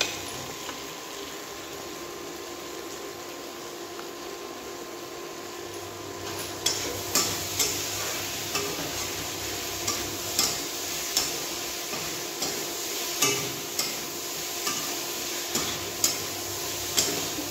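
Soya chunks sizzling as they fry in a metal kadhai. About six seconds in, a metal spatula starts stirring them, scraping and knocking against the pan about once or twice a second.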